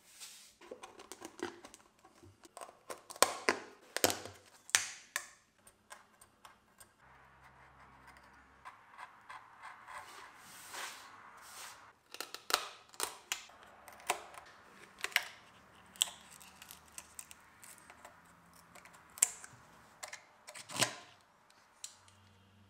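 Hands handling a wooden speaker cabinet: a run of sharp taps, clicks and knocks on the wood, with rubbing and scratching against its surface in between.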